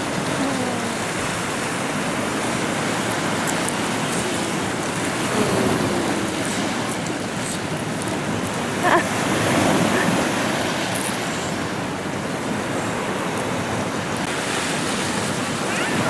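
Sea surf washing over shore rocks: a steady rush of breaking waves, with a short louder moment about nine seconds in.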